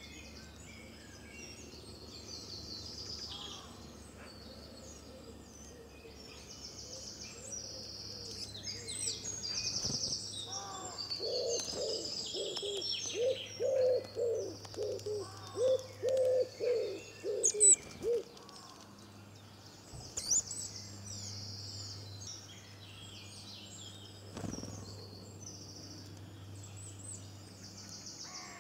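Garden birdsong: several small birds singing and chirping in high trills and twitters. In the middle comes a run of low, repeated cooing notes, the loudest sound here.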